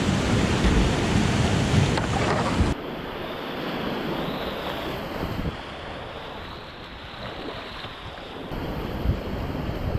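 Whitewater rapids rushing loudly around a kayak running a drop, with water and air buffeting the microphone. About three seconds in, the rush suddenly turns quieter and duller.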